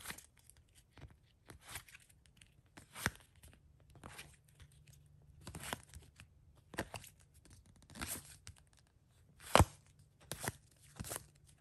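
Topps WWE trading cards being flipped through by hand, each card slid off the stack with a short papery swish or snap, about one a second. One snap about two-thirds of the way through is sharper than the rest.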